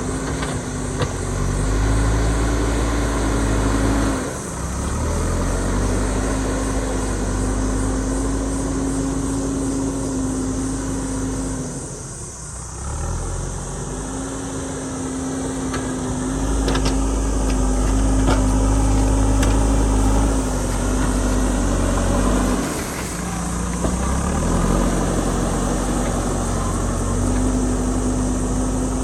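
JCB backhoe loader's diesel engine running under working load, its low rumble swelling and easing and dropping off briefly about four, twelve and twenty-three seconds in, with a few light clanks in between.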